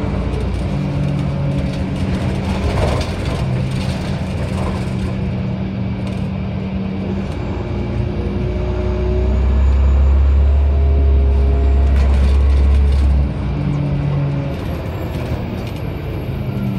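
2007 Orion VII hybrid bus with a Cummins ISB diesel and BAE HybriDrive, running while stationary with a steady low hum. About eight or nine seconds in, a deeper low rumble swells, holds for a few seconds and cuts off abruptly.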